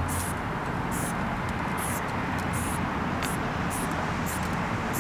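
Aerosol spray paint can hissing in a series of short bursts, roughly one every half second to a second, as short strokes are laid on a wall. A steady low rumble runs underneath.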